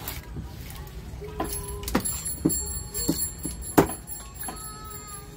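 Heavy kitchen knife chopping through a small tuna onto a round wooden chopping block: about five sharp knocks in the second half, the loudest about four seconds in. A steady ringing tone sounds alongside the chops.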